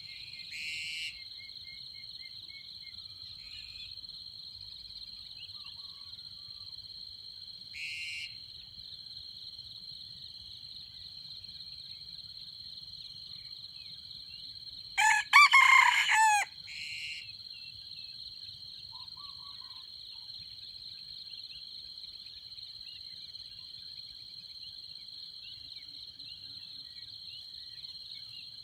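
Red junglefowl rooster crowing once about halfway through, a short clipped crow. It sounds over a steady high-pitched insect drone, with a few fainter short calls elsewhere.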